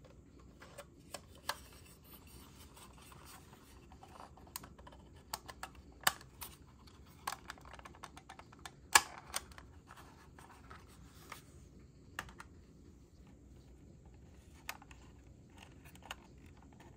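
Hard plastic model-car parts clicking and scraping as the interior tub and chassis are pressed into the painted body: scattered sharp clicks with light rubbing between, the loudest click about nine seconds in.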